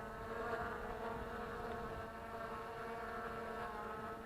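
Hubsan X4 H109S quadcopter's motors and propellers buzzing steadily at an even pitch.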